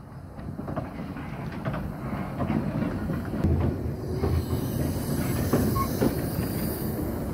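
Talyllyn Railway steam locomotive No. 7 "Tom Rolt" and its narrow-gauge train passing at a crawl. A low rumble grows louder, with irregular clanks and knocks of wheels and couplings, and a hiss builds from about four seconds in.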